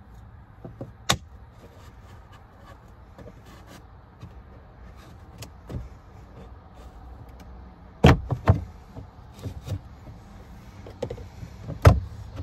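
Spring-loaded plastic clips of a 2022 Ford Super Duty dash-top tray popping loose as the tray is pried up with a cloth-wrapped screwdriver: a sharp click about a second in, a cluster of loud clicks around eight seconds, another near the end, with smaller plastic ticks between.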